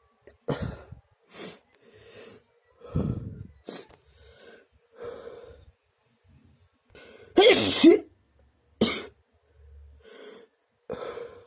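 A person sneezing: one loud 'achoo' about two-thirds of the way through, between short breaths and sniffs, with a smaller cough-like burst about three seconds in.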